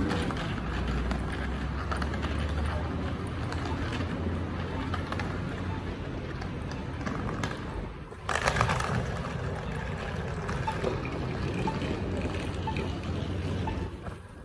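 Steady traffic and outdoor noise at an airport terminal curb, with a louder rush about eight seconds in and faint ticks about once a second through the second half.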